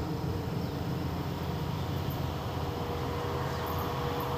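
WDP4B diesel locomotive, with its EMD two-stroke diesel engine, hauling a passenger train on approach: a steady low rumble of engine and train running, with no horn.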